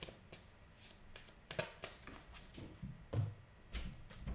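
Oracle cards being shuffled by hand: scattered soft card clicks and slides, with a few dull thumps a little after three seconds in.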